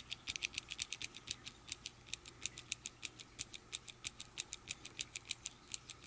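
Platinum OLEeNU MOL-200 mechanical pencil clicking rapidly, about eight sharp clicks a second, as the knock mechanism is worked to advance a short piece of lead that the clutch cannot feed reliably.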